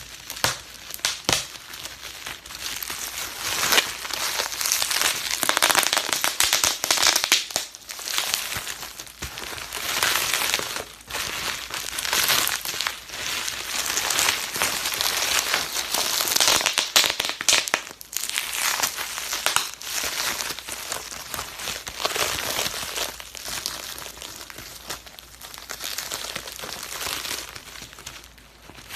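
Plastic bubble wrap being popped and crumpled by hand: dense runs of sharp little pops mixed with crinkling plastic, in bursts with brief pauses.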